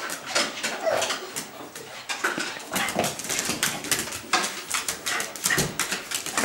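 Dog whimpering and whining in short calls, over a steady patter of small clicks and taps as it moves about on a tiled floor.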